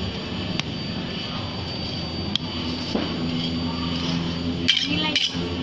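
A metal spatula scrapes and spreads ice cream across the frozen steel plate of a rolled-ice-cream machine, with a few sharp taps of the spatula on the metal, most of them near the end. A steady mechanical hum runs underneath.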